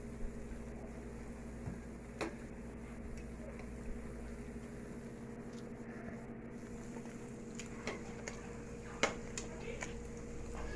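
Steady electrical or mechanical hum from a kitchen appliance, with a few faint clicks and knocks, about two seconds in and twice near the end.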